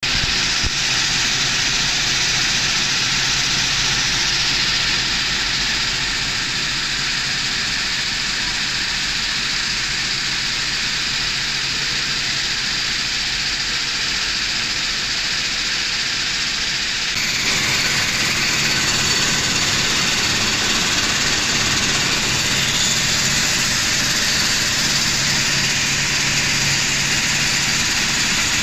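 Continuous electric coffee roaster running, with coffee beans moving along its stacked steel spiral trays: a steady, even machine noise. About two-thirds of the way through the sound changes and becomes a little louder.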